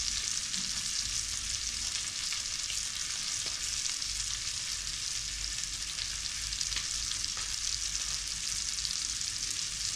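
Fish fillets frying in a pan: a steady sizzle with fine crackles and spits.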